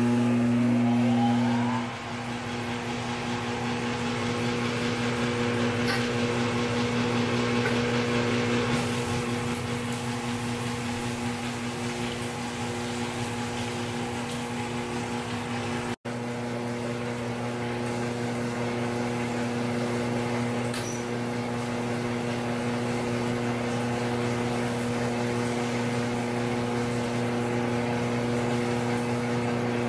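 Crankshaft grinding machine running: a steady motor hum under the hiss of the grinding wheel and coolant on a Triumph 650 unit crankshaft journal. The journal is damaged and out of round.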